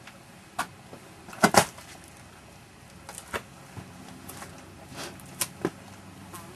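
Scattered knocks and scuffs of sneakers and hands on rock as a person climbs through a narrow gap between boulders, the loudest a close pair of knocks about a second and a half in.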